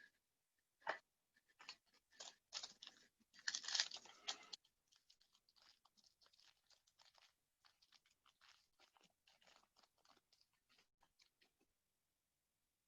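Crinkling and crackling of a plastic trading-card pack wrapper being torn open and handled, a cluster of crackles in the first four or five seconds, then only faint light ticks as the cards are handled.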